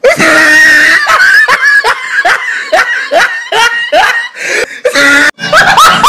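Loud laughter, a run of short high-pitched rising 'ha' sounds about two or three a second. Near the end a different voice cuts in.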